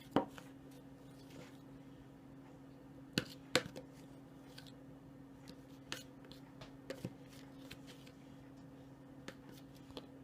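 Scattered light clicks and taps of flour being mixed in a bowl by hand, over a steady low hum.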